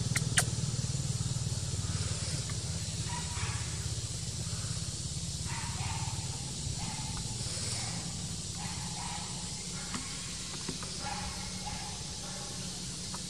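Outdoor ambience: a steady low rumble, with a sharp click about half a second in and faint short calls repeating every second or so after that.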